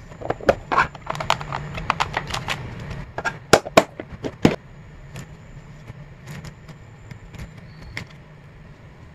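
Stiff clear plastic being handled: a photocard holder and a plastic box crackling and clicking, with a run of sharp snaps in the first half, loudest a few seconds in, then only light scattered clicks.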